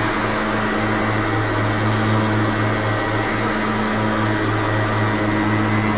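Bass boat's motor running with a steady, even hum under a hiss.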